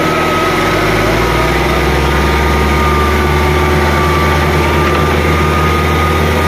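Diesel farm tractor engine running steadily at low revs under heavy load in a tractor-pulling contest, with a thin, steady high whine over it.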